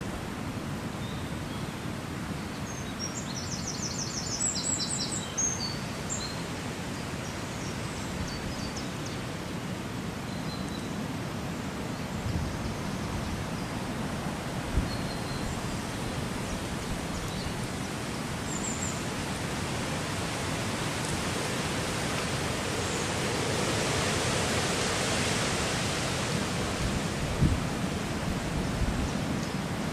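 Steady outdoor background hiss, with a bird singing a quick run of high notes a few seconds in. The rushing noise swells for a few seconds about three-quarters of the way through, and there are a few faint low knocks.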